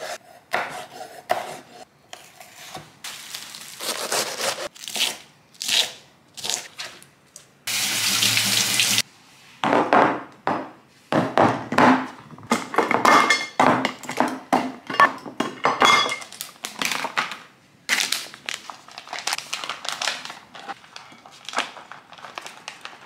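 Kitchen handling sounds in quick succession: glass meal-prep boxes clinking and knocking as they are set on a stone worktop, and a plastic packet of vegetable rice rustling as it is tipped into them. A steady hiss of about a second comes in about eight seconds in and cuts off suddenly.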